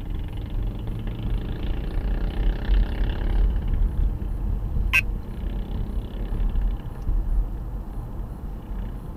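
Car engine and road rumble heard from inside the car as it drives away from an intersection and picks up speed, with one sharp click about five seconds in.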